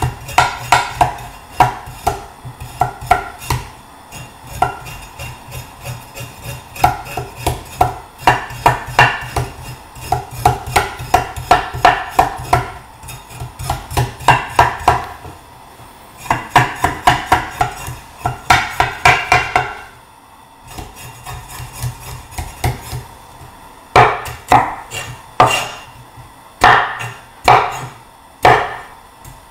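A Chinese cleaver scraping the skin off a piece of ginger on a wooden chopping board, in quick runs of short strokes with the blade knocking the board, broken by short pauses.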